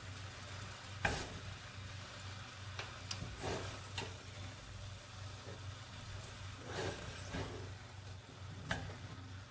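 Rice noodles and vegetables being tossed and stirred in a stainless steel pot, with a faint sizzle under the stirring and a few short knocks of the utensil against the pot.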